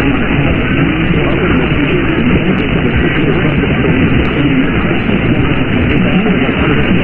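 Radio static: a steady hiss heard through a narrow radio receiver, with faint, indistinct program audio underneath and a few light clicks.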